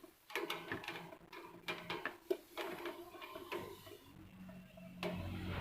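Scattered light clicks and knocks of parts being handled, then a low electric motor hum that starts about four seconds in and gets louder near the end, as a table fan is switched on.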